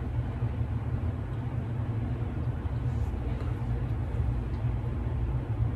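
A steady low rumble of background noise, with a few faint clicks.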